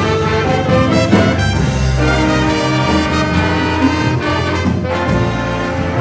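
Jazz big band playing, the brass section of trumpets and trombones holding full chords over a strong bass.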